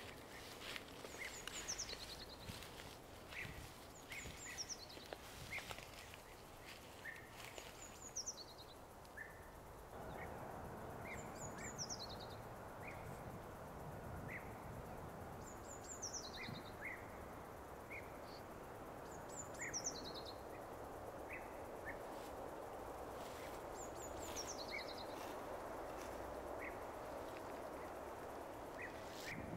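Outdoor ambience: a songbird repeats a short high call that slides down in pitch about every four seconds, with brief chirps between, over a steady hiss of background noise that grows louder about a third of the way in.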